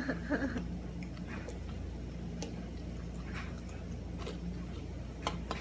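Quiet room with a steady low hum and faint sharp clicks at roughly one-second intervals.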